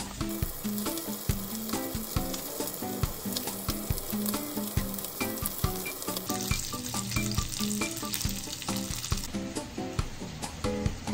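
Chicken pieces sizzling in a frying pan with scattered crackles, the hiss loudest for about three seconds past the middle. Background music plays underneath.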